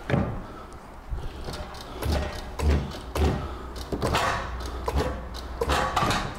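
Irregular clunks and thuds from a manual gearbox being rocked and shifted on a transmission jack as it is jiggled into line with the engine.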